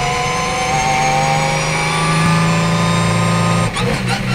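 Ligier JS2R race car's Ford V6 engine heard from inside the cockpit, pulling under throttle with its pitch rising slowly, then a brief break and a quick gear change near the end.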